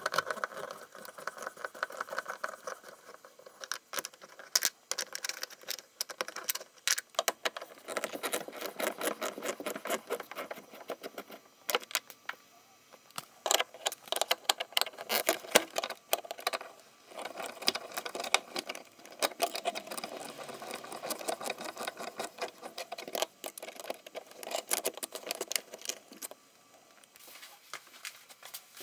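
Screwdriver backing out Phillips screws from the plastic trim of a car's rear door panel: irregular clicks and small rattles, with stretches of scraping as the screws turn.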